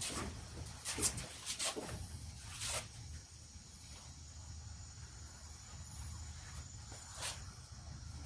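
Scattered short rubbing and scraping sounds of hand work, several in the first three seconds and one more near the end, over a low steady hum.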